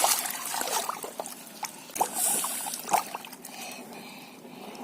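Water trickling and splashing as a toy dump truck is moved through a tub of water, spilling the water it carries, with a few light knocks about two and three seconds in.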